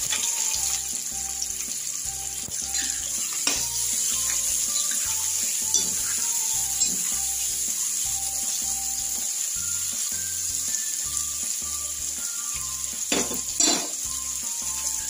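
Chopped onion and tomato sizzling steadily in hot mustard oil in a steel kadhai. A spatula stirs them, scraping the pan now and then, most clearly twice near the end.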